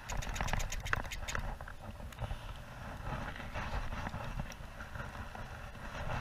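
Baitcasting reel being cranked and handled, with a quick run of small clicks in the first second and a half and scattered clicks after, over a steady low rumble.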